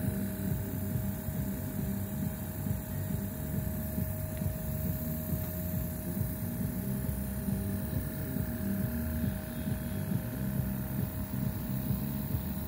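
A motor running steadily: a low, even hum with a thin steady whine above it.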